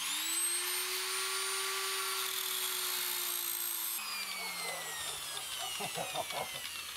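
Angle grinder cutting the old anti-roll bar link: the motor spins up at once to a steady high whine with hiss, runs about four seconds, then is switched off and winds down with a falling whine.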